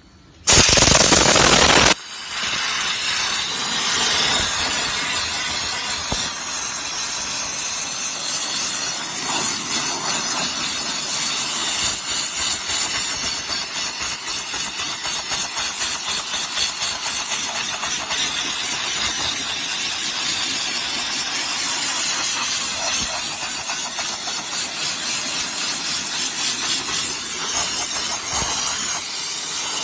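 High-pressure steam car washer's spray lance blasting steam: a loud burst about half a second in as the jet opens, then a steady hiss.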